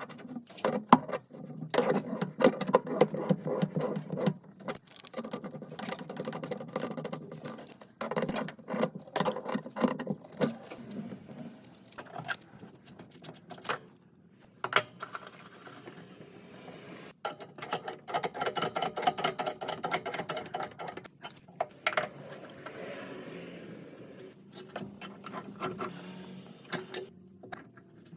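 Rapid clicking and rattling of hand tools and metal plumbing parts being worked, coming in bursts with quieter stretches between.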